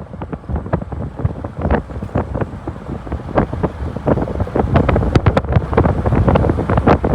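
Wind buffeting the microphone on a moving vehicle: a low rumble broken by rapid, irregular gusts, growing louder about halfway through.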